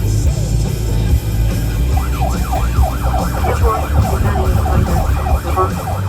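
Emergency vehicle siren in a fast yelp, its pitch rising and falling several times a second, starting about two seconds in, over a steady low rumble of vehicle noise.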